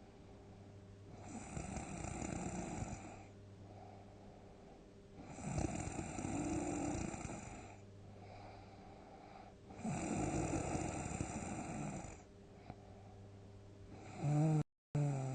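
A person snoring heavily, four long snores about every four seconds with quieter breathing between them. The last snore is more tonal and is broken by a brief gap in the audio near the end.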